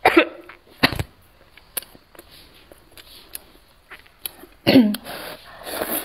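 A woman coughing into her hand, two sharp coughs at the start, set off by the chili heat of the spicy noodles. A little before five seconds comes another loud cough, then slurping of vermicelli noodles.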